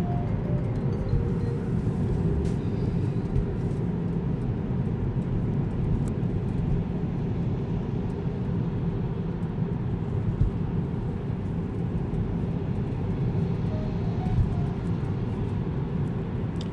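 Steady road and tyre noise heard inside the cabin of a Tesla Model 3 cruising at highway speed, about 85 to 100 km/h, a low even rumble with no engine note.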